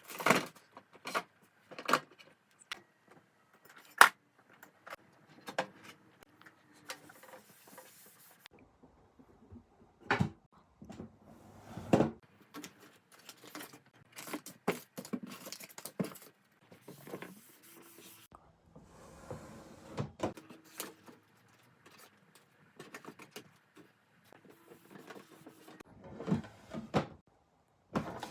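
Skincare bottles and jars being picked up, moved and set down while a skincare fridge is reorganised: irregular clicks and knocks with soft handling noise between them, the sharpest about four seconds in.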